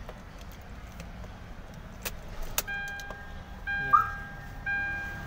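Ignition key turned with a couple of sharp clicks, then the CNG kit's dashboard changeover switch beeping: a repeated electronic beep, one tone about every second. A short chirp sounds near the fourth second.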